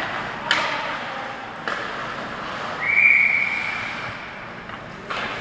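A hockey referee's whistle blown once, a steady high tone lasting about a second and a half, about three seconds in. Before it come a couple of sharp knocks from sticks and puck, and another comes near the end.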